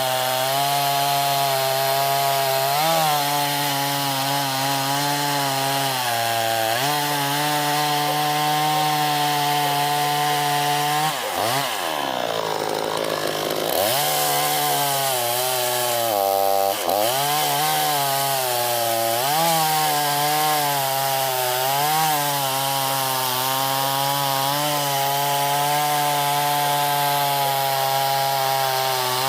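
Chainsaw running and cutting wood. Its pitch sags now and then under load, dropping most deeply about twelve seconds in and again shortly after, then picks back up.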